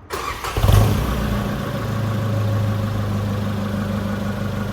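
Car engine heard through a Flowmaster Pro Series performance exhaust: a brief swell about a second in, then a steady idle with a deep, even tone.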